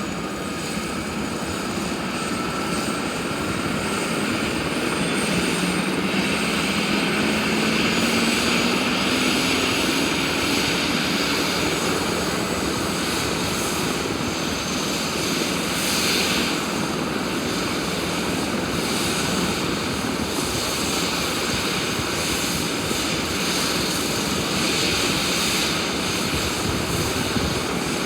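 Airbus H145 helicopter's twin turbine engines and rotor running. Over the first several seconds a whine rises in pitch and the sound grows louder, then it holds steady.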